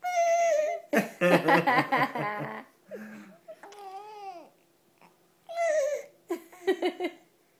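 A baby's high, falling squeals and a gliding coo-like cry, with bursts of laughter in between.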